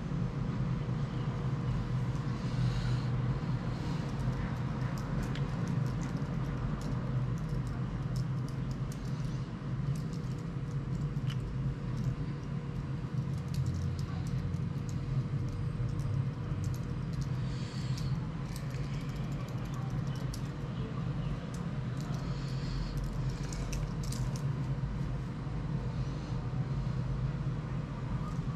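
Steady low rumble and hum with a faint steady tone, and scattered light ticks and small clicks throughout.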